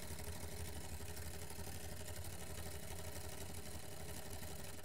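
Homemade solenoid engine running on a 12-volt battery: the solenoid snapping its plunger back and forth and the coat-hanger crank rattling, a very loud, fast, even rattle over a steady low hum.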